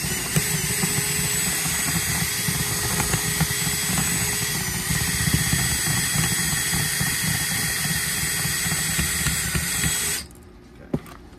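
Cordless drill with a 9/64-inch bit drilling out a rivet in a metal power-supply case. The bit is worked at an angle while the rivet spins with it, so the head is worn away rather than cut cleanly. The drill runs steadily and then stops abruptly about ten seconds in.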